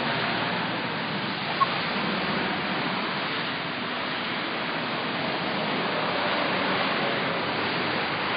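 Steady rushing noise of an outdoor city street, with one brief sharp click about a second and a half in.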